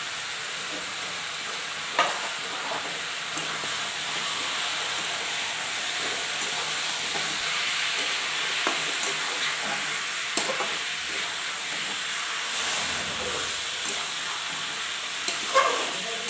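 Chicken pieces frying in oil in a steel kadai, a steady sizzle, while a metal spatula stirs them and scrapes and knocks against the pan a few times, most of all near the end.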